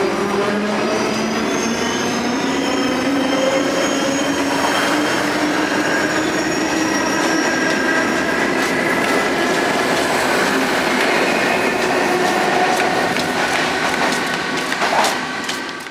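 Cairo Metro train running, with a whine whose pitch rises over the first several seconds as the train picks up speed, and high steady squealing tones from the running gear above it. There is a brief louder clatter near the end.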